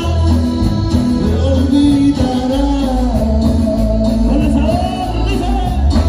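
Band music with a lead singer over bass and guitar.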